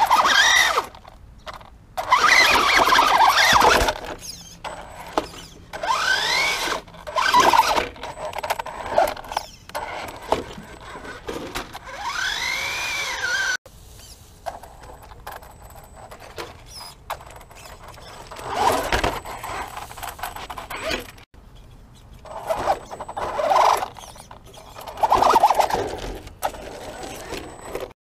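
Traxxas Stampede 4x4 VXL's brushless electric motor whining in repeated short throttle bursts, its pitch rising and falling with each burst, as the truck crawls over rock and gravel.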